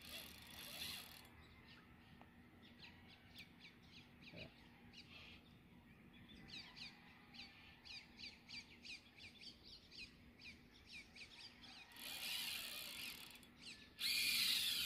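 A bird calling over and over in short, falling chirps, two or three a second. Near the end come two bursts of hissing noise, the second one louder.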